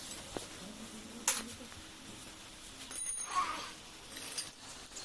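Metal tools and parts clinking and tapping during engine repair work, with a few sharp clicks and one louder ringing metallic clink about three seconds in.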